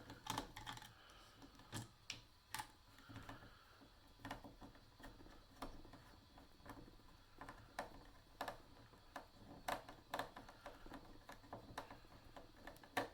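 Faint, irregular light clicks and taps of hard plastic being handled: an audio-guide handset's plastic casing turned over and worked at by hand, about one or two clicks a second.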